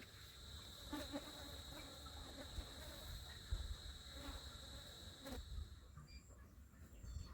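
An insect, cricket-like, trilling in one steady high-pitched note that stops about six seconds in. Low rumbling sits beneath it.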